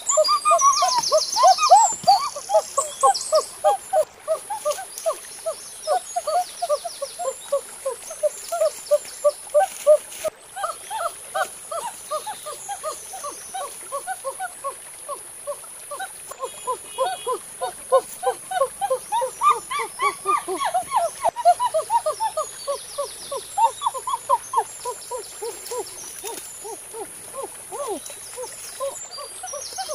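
Birds calling over and over in short falling notes, several a second, over a steady high drone of insects with patches of fast insect trilling.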